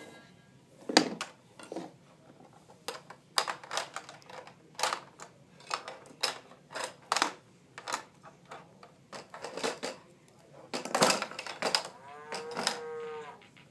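Plastic clicks and clacks from a baby's electronic activity toy as its buttons and parts are pressed and knocked, many separate sharp knocks through the whole stretch. Near the end comes a short wavering pitched sound.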